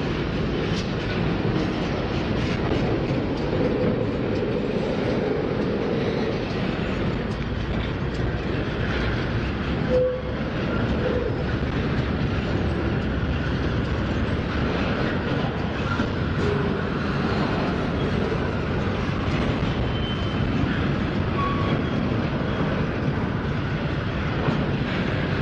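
Four-unit diesel locomotive lash-up pulling a long double-stack intermodal train slowly past, engines running under power and car wheels clacking over the rail joints. A brief sharp sound stands out about ten seconds in.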